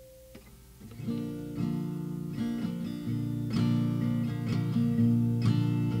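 Acoustic guitar strumming chords, starting about a second in and getting louder, after a faint held note dies away near the start.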